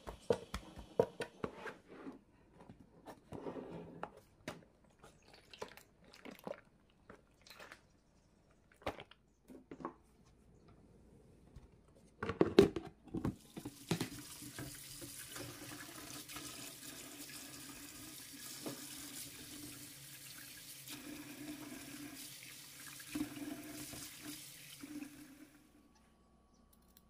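Cucumbers being handled in a plastic storage box, with scattered light knocks and rustles. After a loud knock about halfway through, a kitchen tap runs steadily onto cucumbers being rinsed by hand in a stainless-steel colander for about eleven seconds, then stops.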